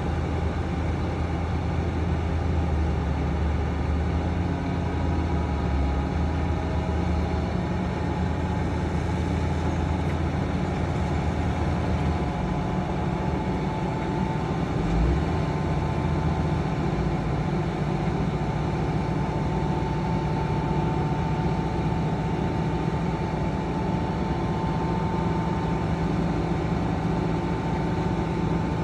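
Heavy diesel earthmoving machinery running steadily under load. About twelve seconds in, the engine note shifts from a deep drone to a somewhat higher hum, and a single brief thump comes a few seconds later.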